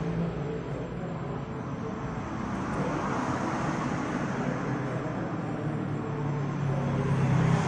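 Road traffic noise: a steady rush with a low engine hum that swells again near the end.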